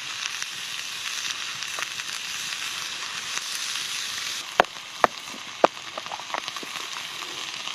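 Bell peppers and spring onions sizzling in butter in a hot carbon-steel skillet, browning over the fire, a steady hiss. About halfway through come three sharp clicks in quick succession, followed by a few lighter ticks.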